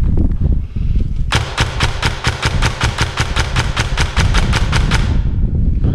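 Ares Amoeba airsoft electric rifle firing one sustained full-auto burst, about six or seven shots a second. The burst starts about a second in and lasts nearly four seconds, over a low rumble of handling noise.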